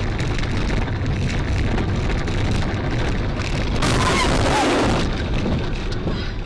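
Loud low rumble of a vehicle on the road as picked up by a dash camera, with a burst of hissing noise about four seconds in.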